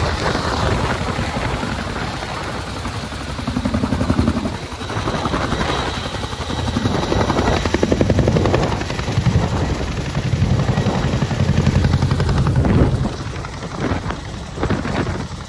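CH-47 Chinook tandem-rotor, twin-turboshaft military helicopter flying low and close as it comes in to land. It makes a loud, continuous rapid rotor chop over turbine noise, easing off a little near the end.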